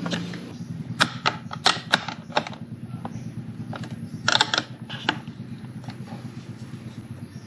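Small steel combination wrench clicking against a nut and bolt as the nut is tightened: a series of sharp metallic clicks, one run about a second in and another about four seconds in, over a low steady hum.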